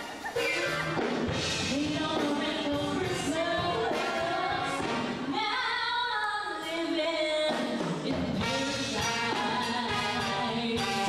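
A woman singing with a live band, holding one long note from about five seconds in to about seven and a half.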